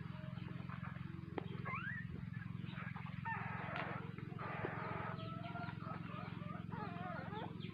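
High-pitched animal squeaks and drawn-out whines that glide up and hold, coming in a few bouts over a steady low hum.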